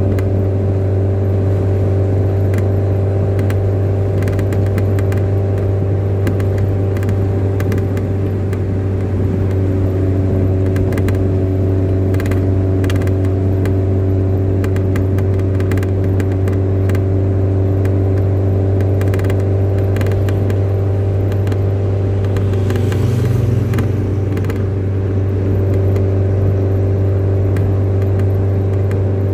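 Steady low motor drone with a few light clicks and rattles.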